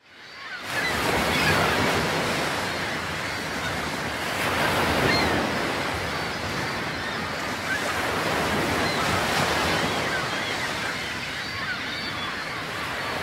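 Ocean surf breaking and washing up a beach, a steady rushing that swells and eases every few seconds.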